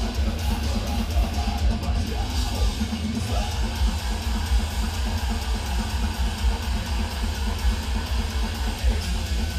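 Live extreme metal band playing at full volume: heavily distorted down-tuned guitars and bass over rapid double-kick drumming, recorded from the audience.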